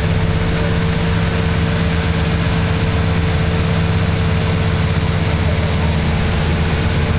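Motorboat engine running steadily at speed while towing, with a constant hiss of rushing water and wind.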